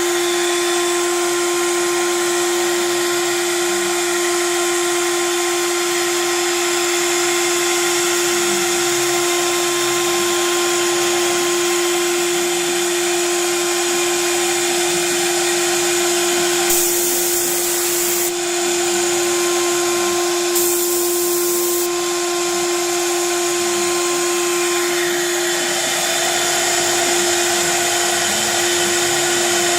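Homemade CNC router's spindle running with a steady high whine over a constant hiss of machine noise. Two short bursts of hissing noise come a little past the middle.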